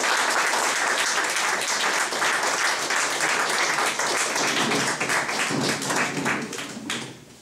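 Audience applauding: dense, steady clapping that thins and fades out near the end.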